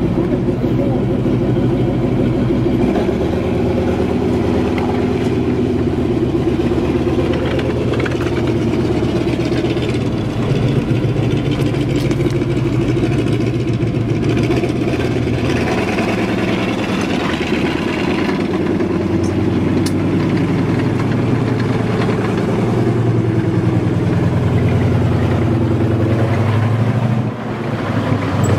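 M4 Sherman tank running and driving slowly over gravel, its engine working steadily, with a short drop in loudness near the end.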